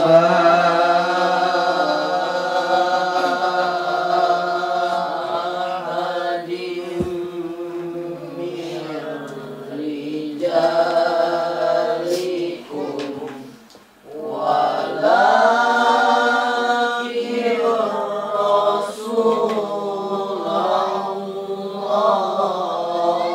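A Quran verse recited in a slow, melodic chant (tilawah), with long-held, ornamented notes. There is a pause for breath a little past halfway, then the recitation resumes.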